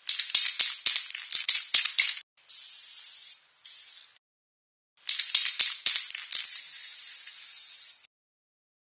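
Rattling, hissing noise with sharp clicks, in stretches broken by short silences: a clicky stretch of about two seconds, a steadier hiss, a pause near the middle, then another stretch of about three seconds that stops shortly before the end.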